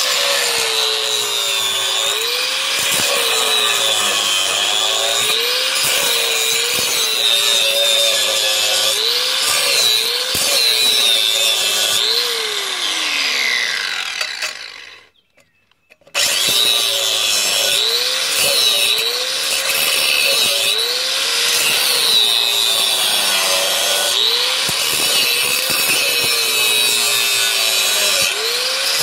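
Angle grinder grinding down the weld bead on a steel exhaust pipe, its pitch dipping and recovering again and again as the disc bites the metal. About twelve seconds in it is switched off and winds down to a stop, and after a short pause it starts up again and keeps grinding.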